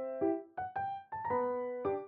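Background music: a gentle piano melody of single struck notes, each one dying away, a few notes a second.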